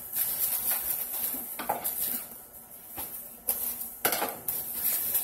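Plastic cling wrap crinkling and rustling as layers are pulled and torn off a wrapped bundle by hand, with several sharp crackles.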